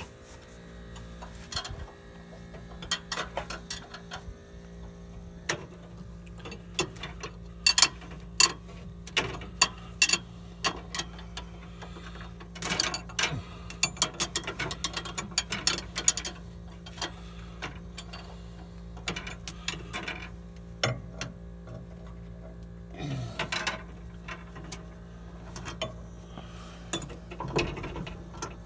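Ratchet wrench clicking in short, quick runs of clicks, with scattered metal taps, while the nuts holding a brake master cylinder are worked loose.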